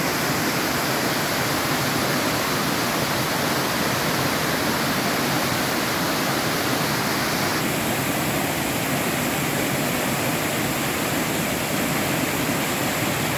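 Steady rushing of water, as of a monsoon waterfall or stream, even and unbroken, easing slightly in its hiss about seven and a half seconds in.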